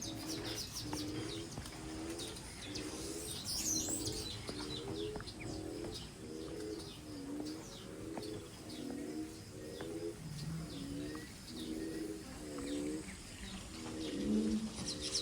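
Birds calling: a low cooing call repeated about twice a second, with short high chirps from smaller birds over it.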